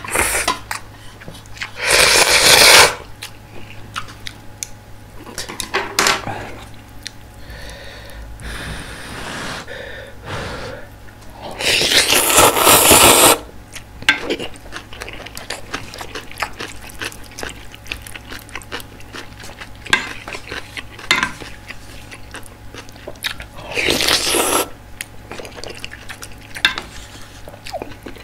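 Close-miked eating of instant ramyeon: noodles slurped loudly in three long bursts, about two seconds in, around twelve seconds in and a few seconds before the end, with quieter chewing and small clicks of chopsticks and spoon against the aluminium pot in between.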